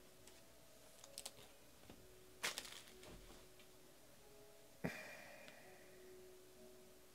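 Quiet handling of trading cards and card boxes on a table: a couple of light clicks, a brief loud scraping rustle about two and a half seconds in, and a sharp tap with a short ringing tone near five seconds.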